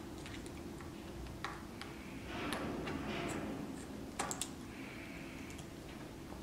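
Small screwdriver loosening screws inside an iPhone 4S chassis: faint clicks and light scraping of the tool on the screw heads, with a few sharper ticks about four seconds in.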